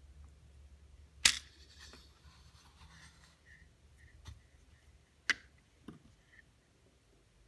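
A few sharp clicks of small hard objects against a work surface, typical of watchmaker's tools and parts being handled. Two louder clicks come about four seconds apart, with fainter taps between them.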